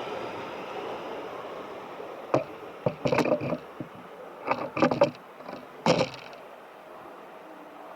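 Train at the station, its running rumble fading away, with a cluster of short clanks and knocks from about two to six seconds in.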